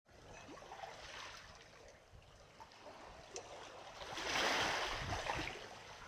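Seaside outdoor ambience: a steady rush of wind and surf, with a louder rushing swell about four seconds in that fades again.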